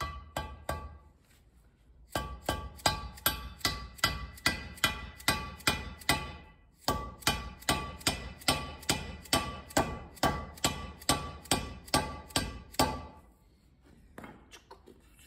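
A mallet tapping a new tapered-roller bearing race (cup) down into its bore in a cast gearbox housing: quick, even blows about three a second, each with a short metallic ring, with a brief pause midway.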